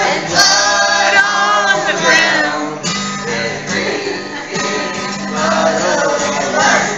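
A man singing while playing an acoustic guitar, with a woman singing along.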